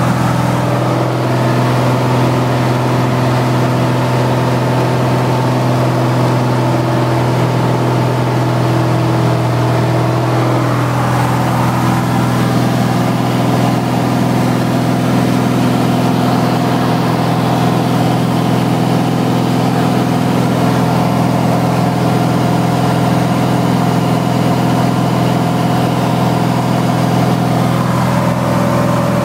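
Light aircraft's piston engine and propeller running steadily in flight, heard from inside the cabin. There is a slight shift in tone about eleven seconds in.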